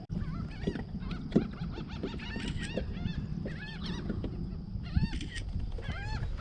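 A flock of birds calling over the water, many short arched calls in quick succession, bunched a few seconds in and again near the end, over steady wind and water noise. A couple of sharp knocks stand out, the loudest about a second and a half in and near five seconds.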